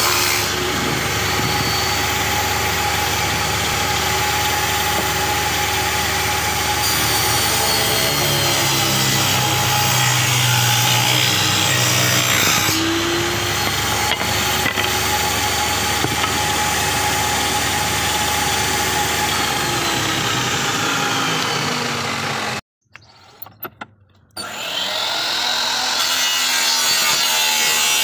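Power saw running and cutting thin wooden strips for moulding, with a steady motor whine under the cutting noise. The sound drops out for about two seconds near the end, then a saw runs again.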